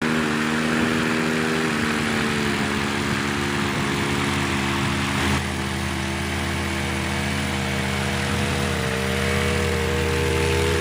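Small engine running steadily. Its pitch steps down about two seconds in and shifts again about five seconds in.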